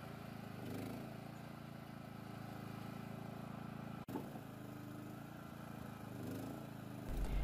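Portable generator's small engine running steadily with an even hum, with a momentary dropout about four seconds in.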